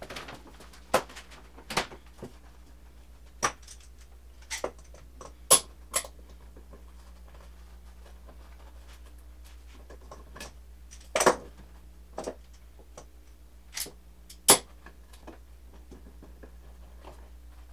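Irregular sharp knocks and clatters of lumber and tools being handled during woodworking, about a dozen, bunched near the start and again in the middle. A low steady hum runs underneath.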